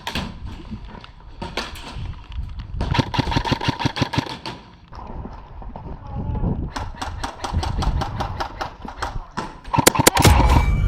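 Airsoft rifles firing rapid full-auto bursts: a run of quick sharp clicks about three seconds in, another about seven seconds in, and the loudest near the end.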